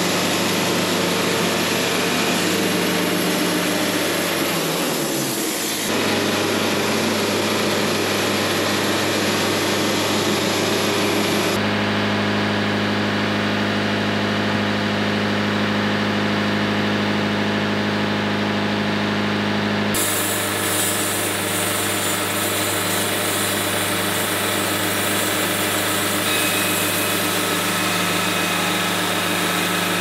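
Wood-Mizer LT70 bandsaw sawmill running steadily, its band blade cutting through a log. The sound shifts abruptly twice, about a third and two-thirds of the way through.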